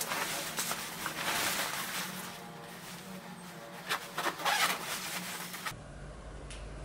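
Rustling of a nylon padded jacket as it is pulled on and fastened, with a few sharper rustles about four seconds in. Near the end the rustling stops and a steady low hum is left.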